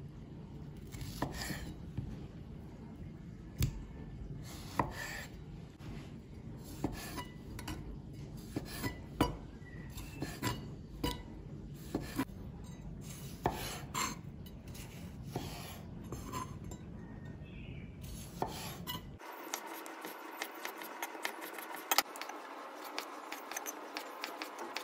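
A chef's knife cutting through tomatoes on a wooden cutting board, the blade tapping the board in irregular clicks, about one or two a second.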